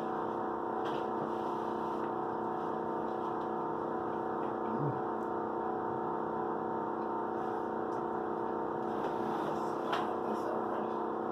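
A steady, even background hum made of several fixed tones, with a few faint clicks over it.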